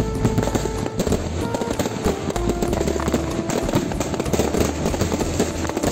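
Background music with held notes and a steady bass, over a dense, continuous crackling and popping of fireworks.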